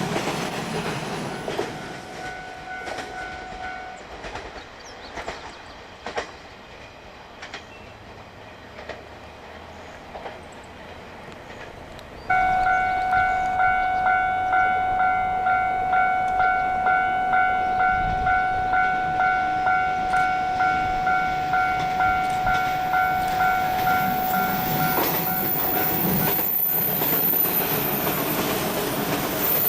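An electric train running past fades away, while a level crossing's electronic warning bell rings briefly and stops. About twelve seconds in, the crossing bell starts again suddenly, ringing steadily at about one and a half strikes a second, as the next train's noise builds up near the end.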